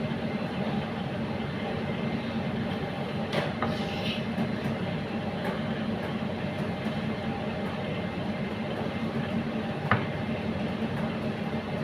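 Steady mechanical rumble with a few light clicks, and one sharp knock about ten seconds in.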